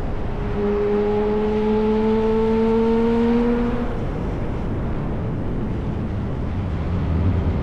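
Yamaha R1 inline-four sport bike engine with an SC-Project exhaust, pulling with a slowly rising note for about three seconds, then running on with a rougher low rumble that grows louder near the end.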